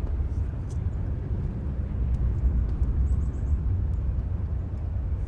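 A steady low outdoor rumble. A quick run of four faint, high chirps comes about three seconds in.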